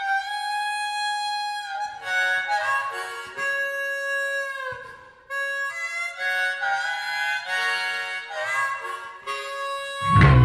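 Background music: a solo harmonica melody of held notes, with no drums or bass under it. The full rock band comes back in near the end.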